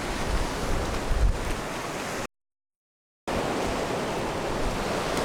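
Ocean surf washing on a beach, with wind buffeting the microphone. About two seconds in, the sound drops out to dead silence for about a second, then the surf comes back steady and without the gusts.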